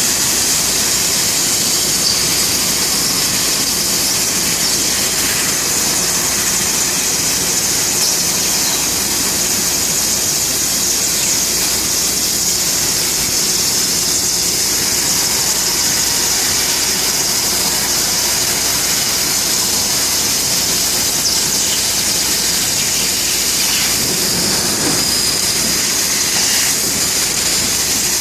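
Bystronic CNC laser cutting machine running: a steady, loud, high-pitched hissing squeal that holds unchanged throughout.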